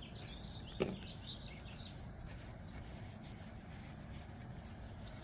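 Quiet handling of small folding-knife parts during disassembly, with one sharp click about a second in and a faint low hum underneath.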